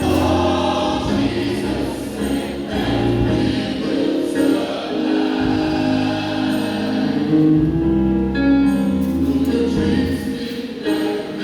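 Gospel choir singing with instrumental backing, voices holding sustained chords over a steady bass line.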